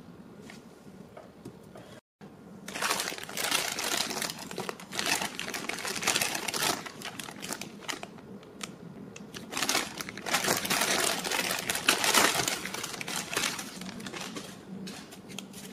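Plastic bag and wrapping of a boxed toy figure crinkling and rustling as it is handled and unwrapped, starting about two and a half seconds in and going on in irregular bursts.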